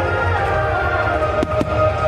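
Starmine fireworks bursting in time to music played over loudspeakers. Held notes and a low rumble run throughout, and two sharp bangs come close together about one and a half seconds in.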